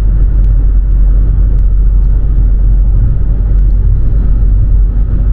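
Car driving on the motorway: a steady low road and engine rumble, heard from inside the car.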